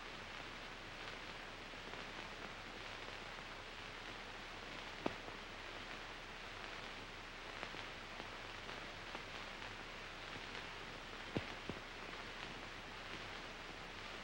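Steady hiss of an old film soundtrack, with a few scattered clicks and crackles; no music or voices.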